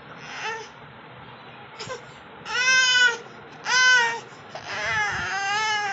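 A baby crying in several high-pitched wails: a faint whimper near the start, two loud cries in the middle and a longer wavering cry near the end.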